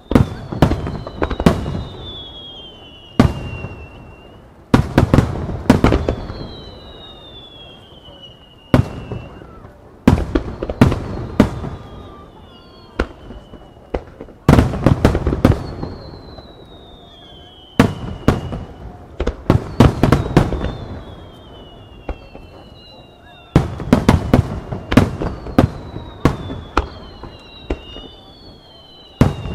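Starmine fireworks display: volleys of aerial shells fired and bursting in close clusters every few seconds, each volley trailing off before the next. Thin whistles falling in pitch sound between the bangs.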